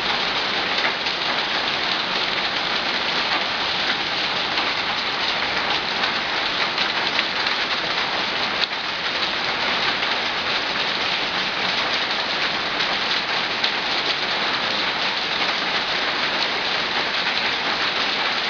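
Hail and rain pelting down in a dense, steady clatter of countless tiny impacts, like popcorn popping.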